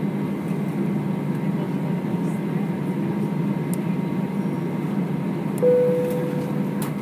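Steady cabin hum of an Airbus A320 with its engines running, heard from inside the cabin. About five and a half seconds in, a single cabin chime sounds and fades over about a second, followed by a few faint clicks.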